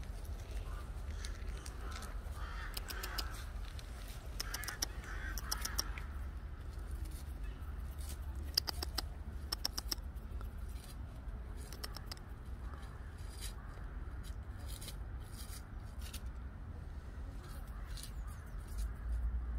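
Eurasian red squirrel rustling and crackling through dry fallen leaves as it forages, in short bursts that are thickest about halfway through, over a low steady rumble. A few faint bird calls come in between about two and six seconds in.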